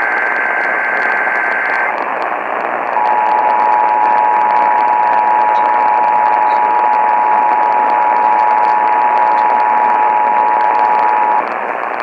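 Emergency Alert System test heard over a hissy radio. A SAME digital header burst ends about two seconds in. After a second of static, the steady two-tone EAS attention signal (853 and 960 Hz) sounds for about eight seconds, then cuts off, leaving the hiss.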